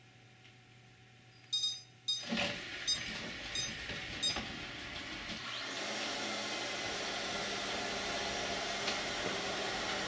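ILIFE X5 robotic vacuum cleaner starting a cleaning run: a few short electronic beeps, the last three evenly spaced, as its brushes and suction fan start up into a steady whirring hiss that gets louder about six seconds in.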